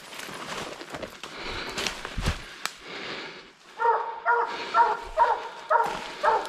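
Hunting hounds barking steadily at a tree, about two barks a second, starting about four seconds in: the chop of dogs that have treed their quarry. Before the barking, brush rustles and twigs snap underfoot as someone pushes through thick undergrowth.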